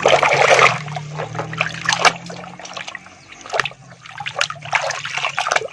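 Water splashing and trickling as muddy plastic toy vehicles are washed by hand, with a loud splash at the start and scattered sharp clicks of toys knocking, over a low steady hum that fades out about halfway.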